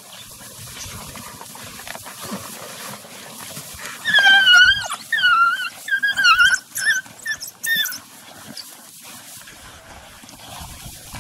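African wild dogs feeding at a kill give a run of some six high-pitched, wavering calls from about four seconds in, lasting about four seconds. Before and after, only a low rustle of the pack at the carcass.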